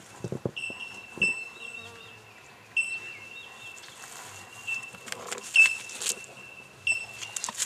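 Insect buzzing in a high, steady tone that breaks off and starts again every second or two, with a few sharp scratchy sounds.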